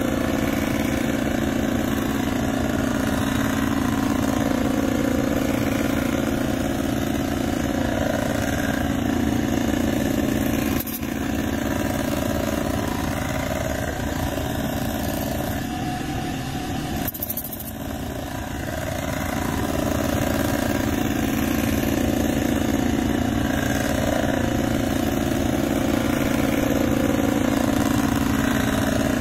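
Cylinder-head resurfacing machine running steadily while it machines the head's gasket face, a constant mechanical hum with two brief dips in level partway through.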